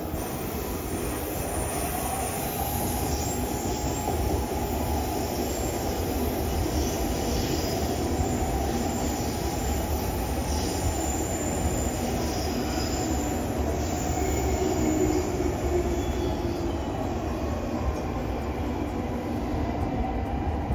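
A train rolling past with a steady rumble, its wheels giving a thin squeal that rises and falls in pitch.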